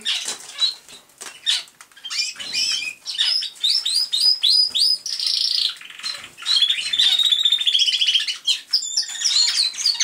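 Male American Singer canary singing a pretty song, typical of the breed: quick high chirps, then a run of repeated down-sliding notes, then a long fast trill in the last few seconds.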